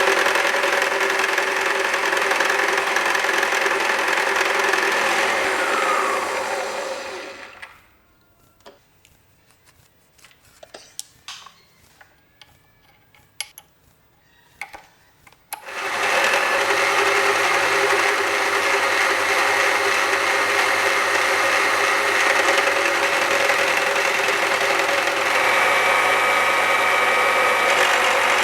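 A metalworking machine tool's electric motor running steadily with a whine, spinning down about six to eight seconds in, followed by a quiet spell with a few light clicks. It starts up again abruptly about sixteen seconds in and runs steadily.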